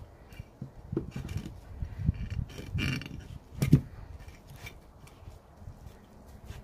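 Handling noise from tying twine around a moss-packed plastic tray on a wooden table: irregular soft thumps and scrapes as the hands press the moss and pull the string, with one sharper knock a little after the middle.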